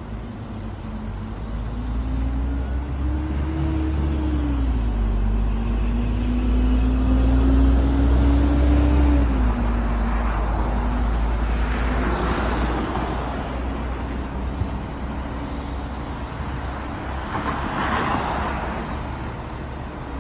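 Road traffic beside a city street: a motor vehicle's engine rumbles past with a hum that rises and falls in pitch, loudest in the first half. Then two more vehicles swish past on their tyres, one just past the middle and one near the end.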